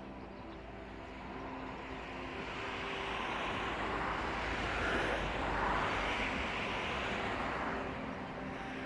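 A vehicle passing by: a noisy rush that swells to a peak about halfway through and fades away again, over faint background music.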